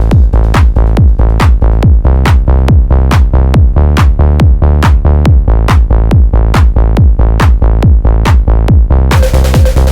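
Live techno from a drum machine and synthesizer: a steady pulse of sharp drum hits over a sustained low bass drone. A hissing high layer comes back in near the end.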